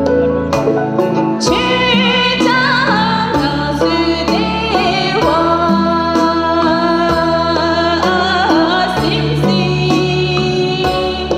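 A woman singing into a microphone over amplified backing music with a steady beat; her voice comes in about a second and a half in, with long held notes.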